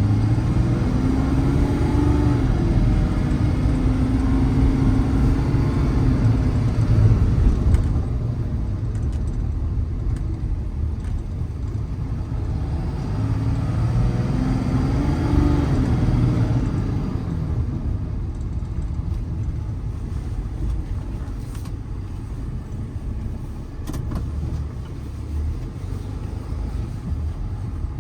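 Ram 5500's 6.7 Cummins turbo-diesel driving, with road noise; the engine pitch rises and falls twice, near the start and again about halfway, then the truck runs more quietly toward the end.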